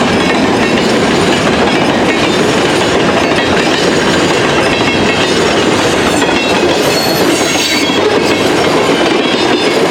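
Freight train cars rolling past slowly, a steady loud rumble and rattle of wheels on the rails, with a few faint high wheel squeals about seven seconds in.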